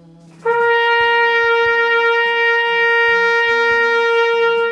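Trumpet holding one long, steady note for about four seconds, a long-tone breathing exercise played on a full breath.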